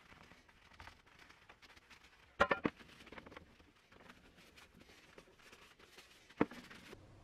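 Faint cloth rubbing on a brass balance pan as it is wiped, with a sharp metallic clink and brief ring about two and a half seconds in, and another single clink about six seconds in.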